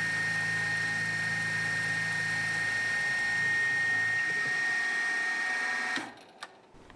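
Milling machine spindle spinning a half-inch Forstner bit at high speed while it drills into a maple block: a steady high-pitched whine over a lower hum that fades out about three seconds in. The whine cuts off suddenly near the end, followed by a faint click.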